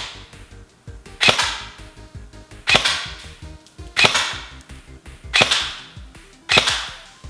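G&G CM16 LMG airsoft electric gun (AEG) firing at a target, five times, about once every 1.3 seconds, each shot trailing off briefly.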